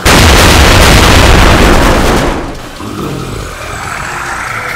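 A sudden, very loud rush of noise with a deep rumble, holding for about two seconds before it fades away.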